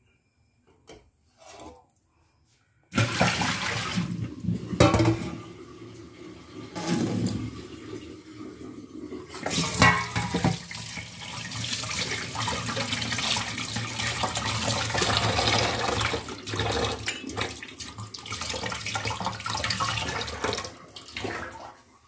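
Kitchen tap running hard, its water splashing over a hand into a steel bowl in a sink as the bowl is rinsed. It starts abruptly about three seconds in, with uneven louder splashes, and stops shortly before the end.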